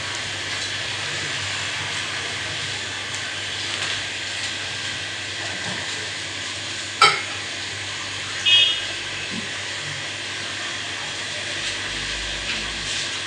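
Steady background hiss, broken by one sharp click about seven seconds in and a brief high-pitched electronic-sounding chirp about a second and a half later.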